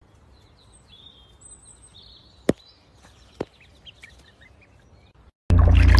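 Faint small birds chirping over quiet outdoor background, with two sharp clicks a little under a second apart around the middle. Near the end a loud rumbling noise cuts in abruptly.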